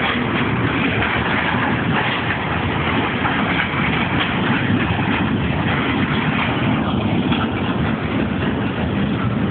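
Freight wagons rolling past close by: tank wagons and then a boxcar, their wheels making a loud, steady rumble and clatter on the rails.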